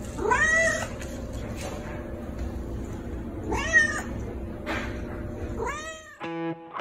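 A domestic cat meowing three times, each meow rising and then falling in pitch. Music with guitar starts just before the end.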